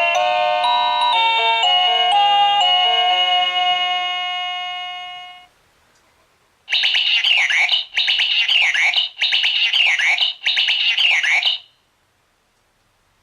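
Wireless door-chime receiver playing an electronic melody chime that fades out. After a short pause it plays a second tone: four warbling bursts of about a second each with quick pitch sweeps.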